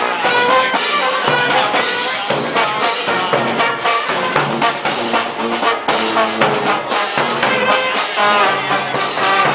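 Street brass band playing: trumpets and trombones carry a melody of changing notes over drums keeping an even beat.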